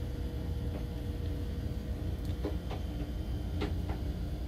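Room tone in a small cabin: a steady low hum with a few faint clicks.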